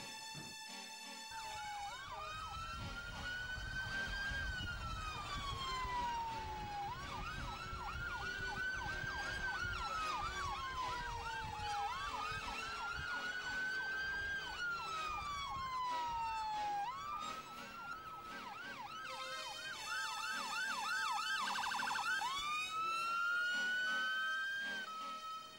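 Ambulance siren wailing, its pitch climbing quickly and then falling slowly, about once every five seconds. Around twenty seconds in it switches briefly to fast yelps, then returns to the slow wail.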